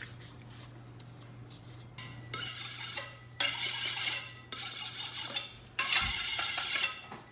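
Kitchen knife being sharpened: the blade drawn along a sharpener in about four long, scraping strokes of roughly a second each, starting about two seconds in.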